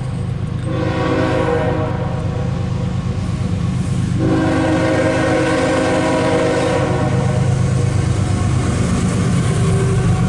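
Locomotive air horn sounding two long blasts, the second longer than the first, over a steady low rumble.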